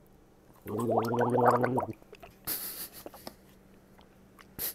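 A man gargling a mouthful of water for about a second, a wavering low bubbling gurgle. About half a second after it stops comes a brief hissing puff.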